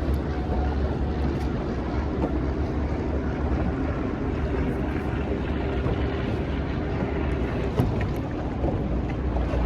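Boat motor running steadily, a continuous low drone with a faint hum in it.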